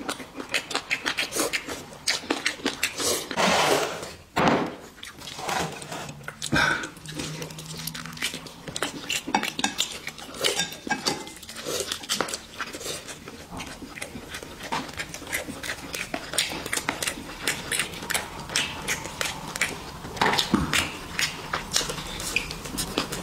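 Two people eating braised chicken at close range: wet chewing and lip-smacking, many quick clicks and smacks in a row, with chopsticks and dishes clinking now and then.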